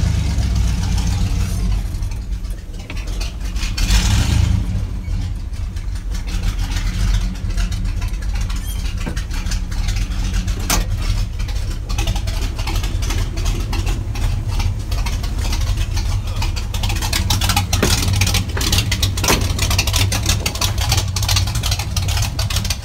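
Engine of a Ford F-250 Bigfoot replica monster truck idling steadily while it warms up after a cold start, briefly louder about four seconds in.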